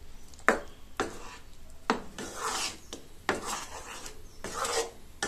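Black spatula scraping and stirring thick gooseberry paste through jaggery syrup in a nonstick pan, in repeated scraping strokes about once a second. It is kept moving constantly so the halwa does not catch on the bottom.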